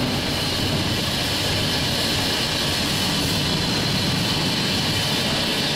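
Steady rumble and hiss of a 1943 Davenport-built steam locomotive, as heard from its cab, with no clear beat of exhaust beats.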